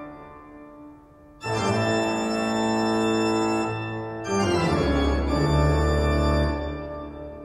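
Slow organ music: sustained held chords, the first dying away, a new one coming in about one and a half seconds in and another at about four seconds, which then fades slowly.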